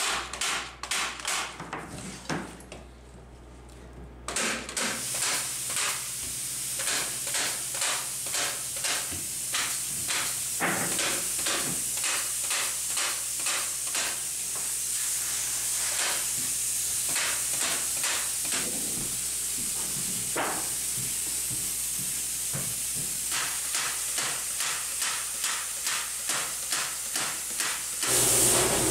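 Pneumatic staple gun firing again and again into netting over wooden studs, roughly two shots a second, over a steady hiss of air. There is a short pause a few seconds in.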